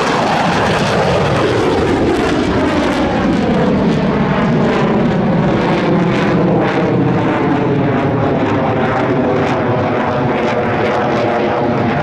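Engine noise of a USAF F-16 fighter jet (General Electric F110 turbofan) at high power as it pulls up and climbs away. A loud, steady jet noise whose tones slide downward over the first few seconds, then hold steady.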